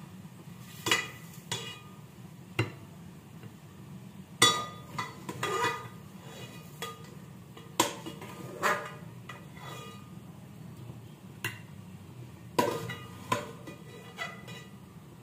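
A utensil clinking and knocking against dishes about a dozen times at irregular intervals, some strikes ringing briefly, as pieces of cooked chicken are set onto a glass plate. A low steady hum runs underneath.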